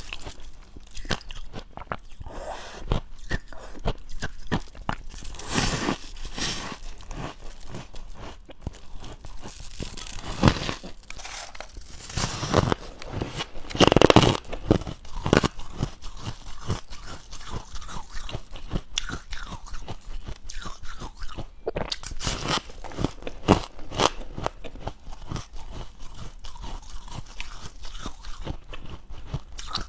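Person biting and chewing dry, powdery freezer-frost ice: continuous crisp crunching with many sharp bites, the loudest crunch about 14 seconds in.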